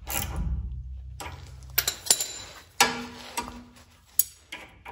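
A ratchet and socket working on the torsion-bar key adjusting bolt, run in a little further to set front ride height. After a short first sound, about half a dozen sharp metal clicks come at irregular spacing.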